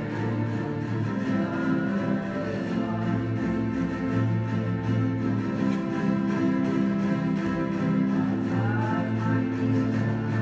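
A student ensemble of acoustic guitars playing a piece together, over steadily held low notes.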